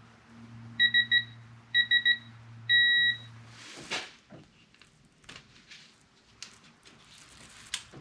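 Digital torque wrench beeping as a camshaft sprocket bolt is tightened: two quick sets of three short beeps, then one longer beep about three seconds in as the set torque is reached. A low steady hum underneath stops soon after, and light clicks of tools on the engine follow.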